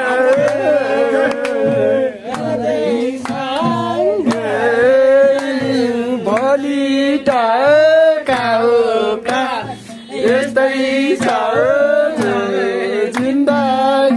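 A song: a melodic singing voice over a steady repeating beat.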